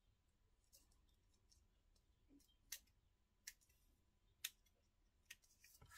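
Small craft scissors snipping off excess plastic film around a die-cut paper number: a handful of faint, sharp snips spaced irregularly, about a second apart.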